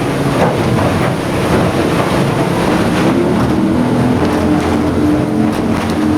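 Yamaha F350 5.3-litre V8 four-stroke outboard opened up toward full throttle, about 5,300 rpm, over rushing wind and water. Its note climbs in pitch about halfway through, then holds steady.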